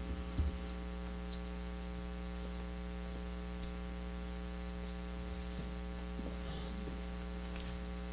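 Steady electrical mains hum from the audio system, with a few faint clicks.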